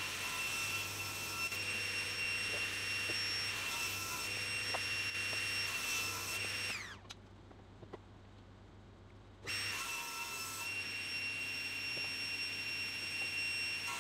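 Table saw running with a steady high whine while ripping maple blocks square. About seven seconds in it winds down with falling pitch, then starts up again a couple of seconds later and carries on cutting.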